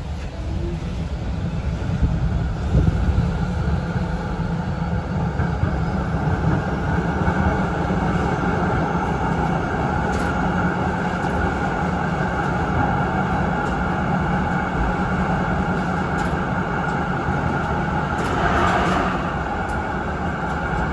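Melbourne tram in motion, heard from inside the passenger saloon: a steady rumble of wheels on rail with a faint whine, a few light clicks, and a brief swell in loudness near the end.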